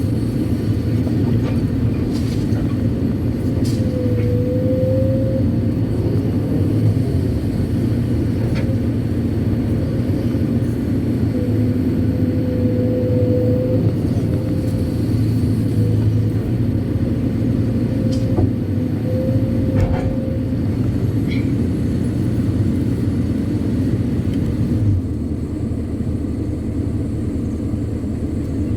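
Kobelco SK200-8 Super X excavator working: its diesel engine runs steadily under load, with a hydraulic whine that swells and wavers as the boom and bucket move. A few sharp knocks are heard, and the engine settles a little lower near the end.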